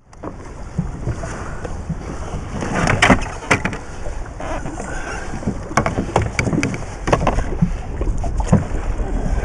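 Steady wind and water noise around a small fishing boat, with scattered sharp knocks and clatters as a landing net is worked over the side to land a hooked fish.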